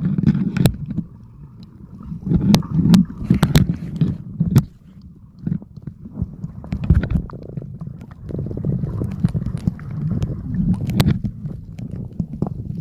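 Muffled underwater sound picked up by a submerged camera: low rumbling surges of moving water, with a few sharp clicks in the first five seconds and again near the end.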